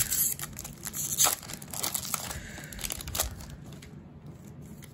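Foil Pokémon booster-pack wrapper crinkling and tearing as it is ripped open by hand, in sharp bursts over the first three seconds or so, then falling quieter.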